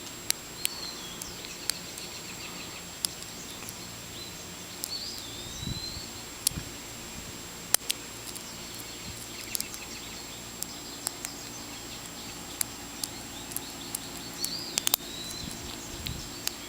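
Light, irregular clicks and ticks of a lock pick and tension wrench working the pins inside a small Brooks padlock whose pin stack is gummed up with old lubricant. A bird chirps faintly a few times in the background.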